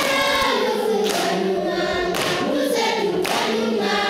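A choir singing, with long held notes.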